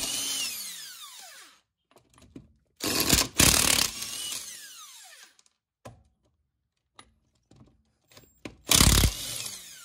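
Milwaukee cordless impact wrench hammering lug nuts off a car wheel in two short bursts, about three seconds in and near the end. Each burst trails off in a falling whine as the motor winds down, with a few light clicks in between.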